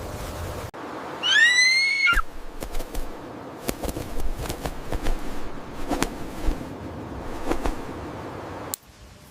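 An animal's single high call, lasting about a second: it rises, holds, then drops off. Scattered sharp clicks and knocks follow.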